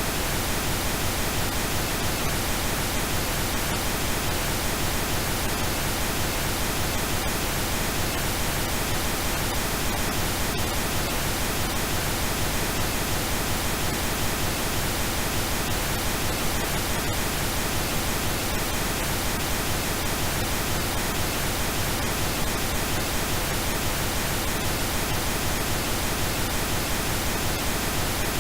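Steady synthetic pink noise: an even, unchanging hiss spread across low and high pitches alike.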